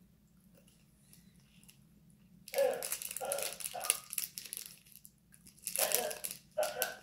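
Plastic snack wrapper crinkling as it is handled, in two bursts of rustling after a quiet start.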